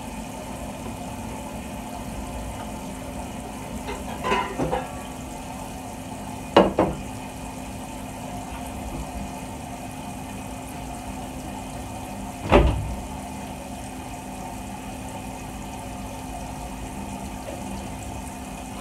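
Water running steadily from a kitchen tap into a pot, with a few knocks from the pot and kitchenware being handled; the loudest is a dull thud about two-thirds of the way through.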